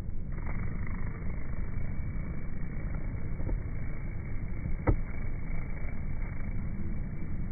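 Honeybees buzzing in flight, slowed down so the buzz becomes a deep, low hum. A single sharp click about five seconds in.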